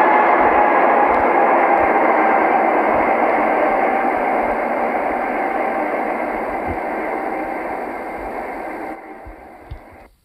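Steady rushing noise with a few faint steady tones in it, like radio static. It fades gradually through the second half and cuts off about a second before the end.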